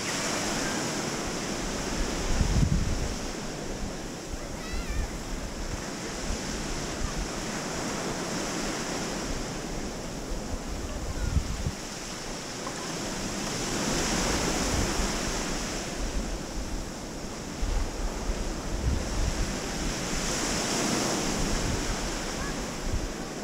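Small sea waves washing onto a sandy beach, the surf swelling and easing every several seconds, with gusts of wind buffeting the microphone now and then.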